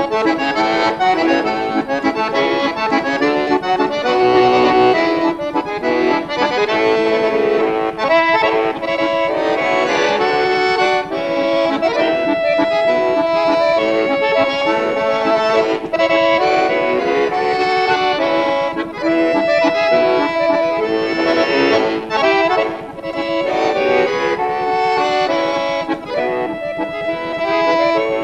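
Solo button accordion playing quick runs of notes over held chords.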